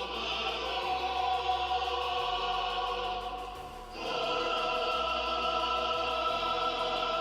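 Choral music from a lightsaber sound font: a choir holds sustained chords, changing to a new chord about four seconds in.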